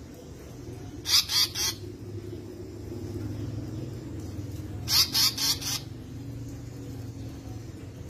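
Male Asian paradise flycatcher calling: two bursts of three or four quick, high notes, about four seconds apart.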